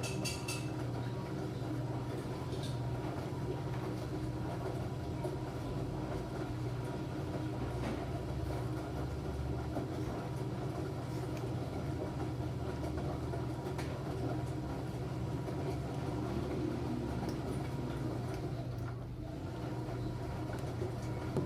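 Enxuta Júnior 2 kg compact washing machine running: a steady motor hum with churning noise, dipping briefly near the end.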